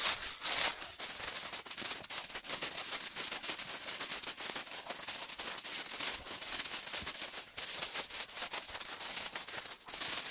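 Footsteps crunching through dry leaf litter: a steady run of fast crackles and rustles, with a few louder crunches in the first second.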